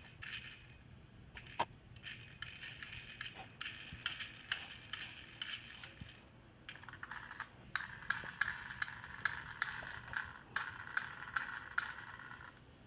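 Faint whirring with quick small clicks from a little toy car's wheels and gears being turned by hand. The whir drops lower in pitch about halfway through.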